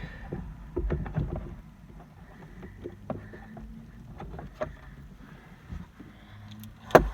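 Handling noise from fitting a child car seat: scattered clicks, knocks and rustling of its straps and fittings, with one loud sharp knock near the end.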